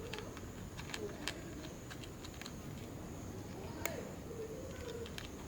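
Cat eating, chewing food with scattered sharp clicks.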